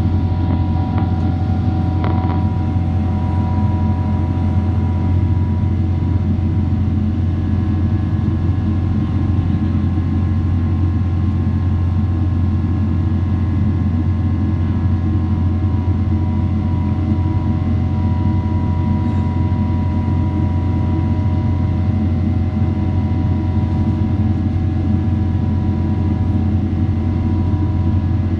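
Boeing 777 cabin noise in the climb after takeoff: the steady drone of the jet engines and rushing air, with faint steady whining tones over it. A small tick sounds about two seconds in.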